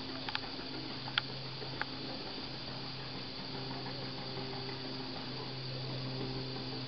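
Steady low hum with a faint hiss, and a few faint sharp clicks in the first two seconds.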